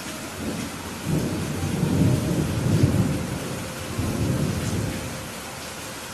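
Thunder rumbling over steady rain. The rumble builds about half a second in, is loudest around two to three seconds, swells once more near four seconds and then dies away.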